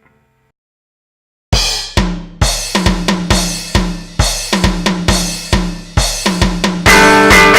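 Silence for about a second and a half, then a rock drum kit plays alone: kick drum, snare and cymbals in a steady beat. Near the end, guitar and the rest of the band come back in.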